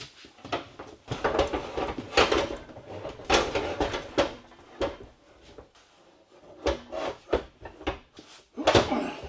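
A heavy inverter cabinet being hooked onto its steel wall bracket: a run of scrapes and knocks from about a second in, easing off after four seconds, with a few more knocks and rubs near the end as it is settled in place.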